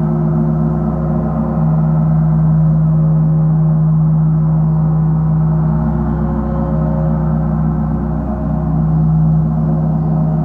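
A large gong played with soft mallets in a continuous roll, sounding as a deep, dense, sustained hum of many overlapping tones with no separate strikes. It swells gently about a second and a half in and again near the end.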